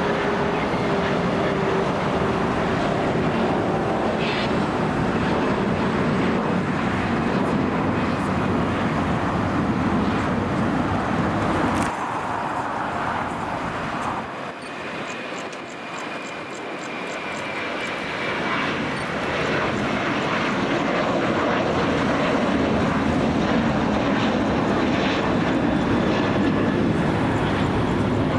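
Jet airliner engines running loud and steady, with a slowly falling tone near the start. About halfway through the sound changes abruptly and dips, then builds back up with a faint high whine.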